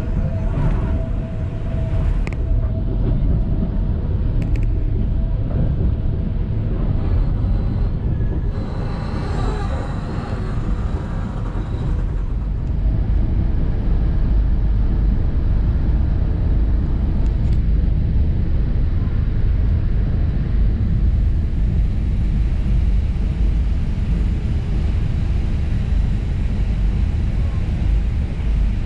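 Metre-gauge electric train of the Centovalli Railway running steadily, heard from inside the carriage: a continuous low rumble of wheels on the track.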